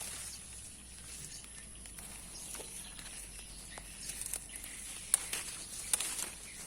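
Light crackles and rustles of leaves and plant stems, sparse at first and busier from about four seconds in, over a steady high hiss.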